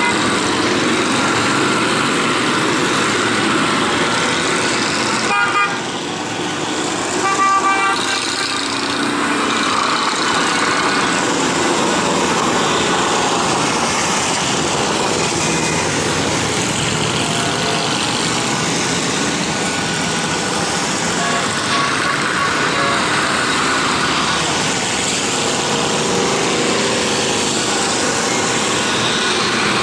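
A long procession of motorcycles riding past, their engines running together in a continuous din, with horns tooting now and then.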